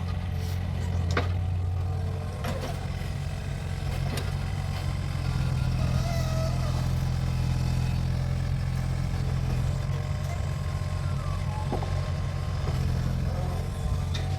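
Mini excavator's diesel engine running steadily under work, with a few sharp metallic knocks from the machine.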